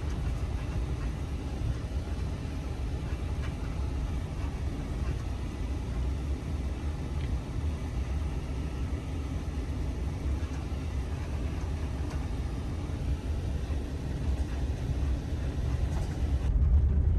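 Ram ProMaster van on the move: a steady low rumble of engine and road noise, growing louder near the end.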